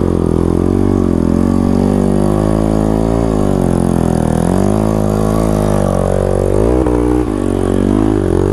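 Motorcycle engine revving hard under load on a steep dirt-trail climb, its pitch rising and falling repeatedly as the throttle is worked, with a brief dip about seven seconds in.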